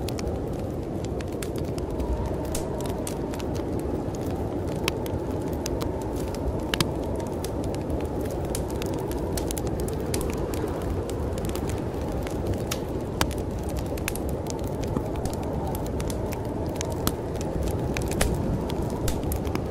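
Wood fire crackling with scattered sharp pops, over a steady low rumble of storm wind.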